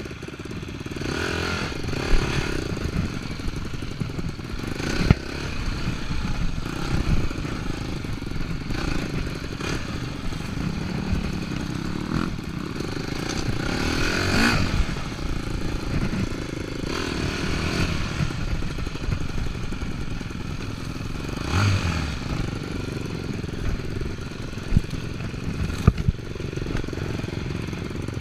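Enduro dirt bike engine running as it is ridden over a rough off-road trail, with several sharp knocks and clatter from the bike over the uneven ground.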